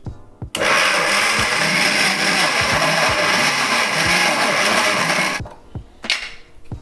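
Electric mixer grinder with a steel jar running at full speed, grinding roasted peanuts that have already begun to release their oil into a sticky paste. It starts abruptly about half a second in and cuts off after about five seconds.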